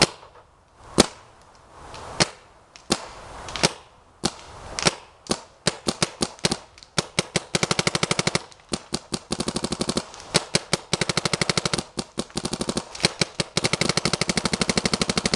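A Planet Eclipse electropneumatic paintball marker firing: single shots a second or so apart at first, coming quicker, then long rapid strings of shots about ten a second, as in ramping.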